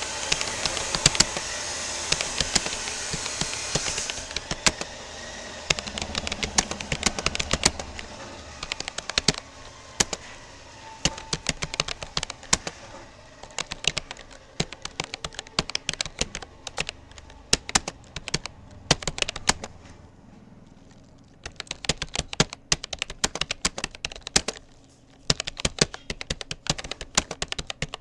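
Touch typing on a Rapoo computer keyboard: a fast, irregular run of key clicks, with a short pause about twenty seconds in. A steady hiss fades out over the first few seconds.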